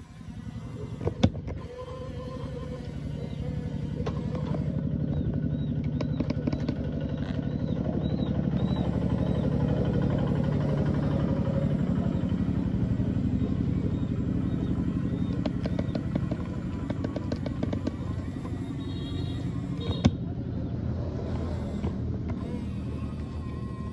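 Electric drive motors and gearing of a radio-controlled construction model whirring with a dense clatter as the machine works. The sound builds over the first several seconds and then holds fairly steady, with a few sharp clicks.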